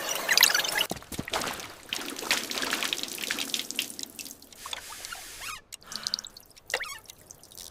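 Water dripping and trickling: irregular drops and small splashes that thin out toward the end.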